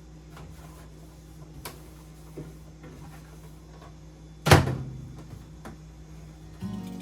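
Kitchen cupboard door shutting with one loud knock about four and a half seconds in, amid faint clicks and taps of things being handled. Guitar music comes in near the end.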